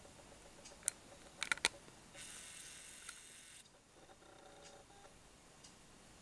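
Handheld camera sounds: a few sharp clicks of handling about a second in, then a small motor whirring steadily for about a second and a half, followed by a fainter, lower whir, typical of the lens zoom motor.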